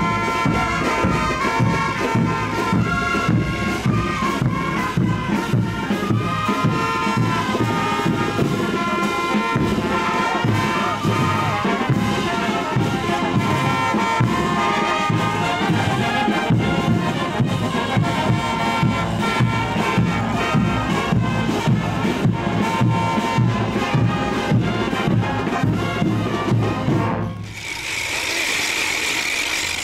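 Festival dance music from a band with brass and a steady drum beat. About 27 seconds in the music cuts off and a loud steady hiss takes over.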